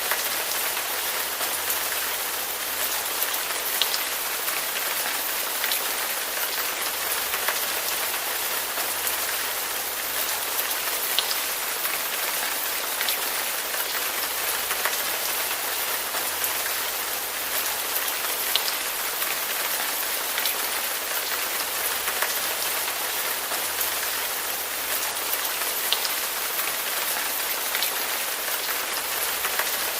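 Steady rain falling on a surface, an even hiss with occasional single drops ticking out above it.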